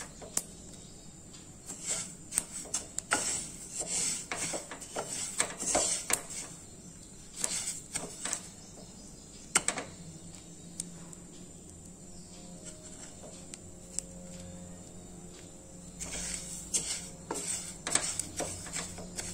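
Niger seeds dry-roasting in a nonstick pan, stirred with a wooden spatula: dry rustling and scraping in bursts, with small crackling pops from the roasting seeds. The stirring stops for several seconds in the middle and starts again near the end.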